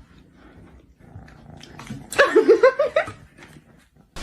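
A cat giving one short, wavering yowl about two seconds in, with the pitch pulsing quickly up and down.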